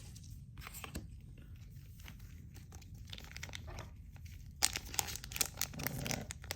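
Foil booster-pack wrapper crinkling and tearing: a run of sharp crackles starting a little past the middle, after a quiet stretch with a few faint ticks.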